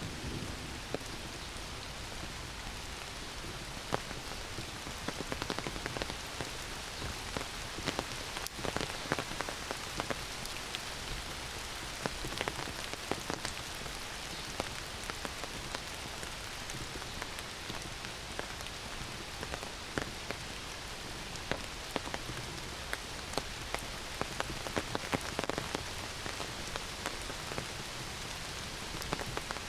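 Heavy rain falling steadily through forest, with a constant hiss and many close, individual drops pattering on leaves and surfaces.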